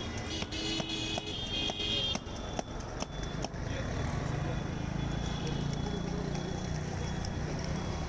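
Sharp clicks and taps of a metal spoon and spice tin on a steel mixing cup as chanachur is mixed by hand, over a steady hum of road traffic that fills the second half.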